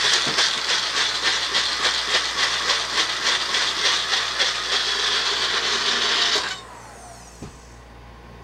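Magic Bullet blender motor running hard, chopping a cup filled less than halfway with salsa vegetables. It cuts off about six and a half seconds in, with a short falling whine as the motor spins down.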